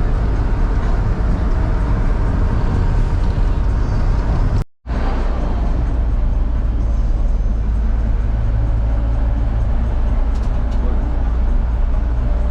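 Bus engine running with a steady low rumble and road or traffic noise, broken by a sudden cut to silence about five seconds in.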